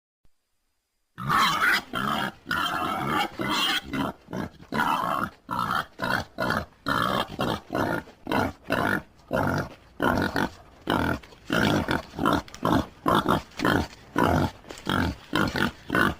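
Wild boar grunting over and over in quick, rough bursts of about two a second, starting about a second in.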